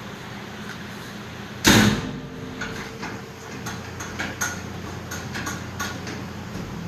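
A steel baler door shut with one loud metallic bang and a brief ring about two seconds in, followed by a string of lighter clicks and knocks, over a steady low hum.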